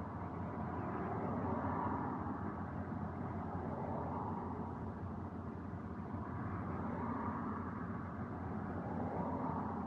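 Steady city traffic and idling-car hum picked up by a dashcam in a stopped car, swelling gently a few times as other cars pass.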